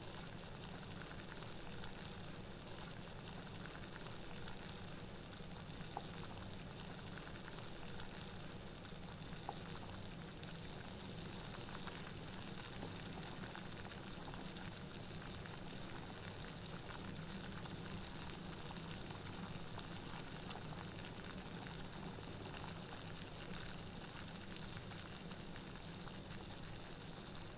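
Steady, even hiss of room tone, with a couple of faint small ticks along the way.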